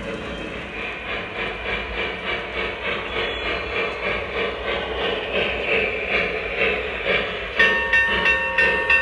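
Lionel Vision Line Union Pacific Challenger model's onboard sound system playing rhythmic steam-locomotive chuffing. About seven and a half seconds in, a chime steam whistle joins with several steady tones at once and the sound gets louder.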